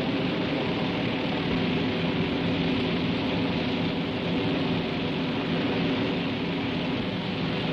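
Bristol Brabazon's Bristol Centaurus radial piston engines running with the propellers turning: a steady, unbroken engine drone with a low hum.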